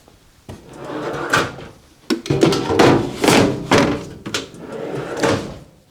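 Tool-box drawers sliding open and shut on their runners several times, each stroke a swish ending in clicks and a knock.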